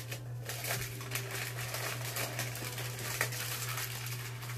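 Gift wrapping paper crinkling and crackling in irregular bursts as a present is unwrapped by hand, over a steady low hum.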